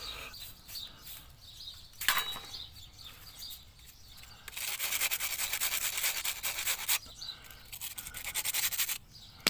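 Rubbing and scraping strokes on the surface of a brick repair, smoothing it to match the texture of the surrounding brickwork. A single scrape comes about 2 seconds in, then a run of rapid back-and-forth strokes from about halfway to about three quarters of the way through. Faint bird chirps are heard in the gaps.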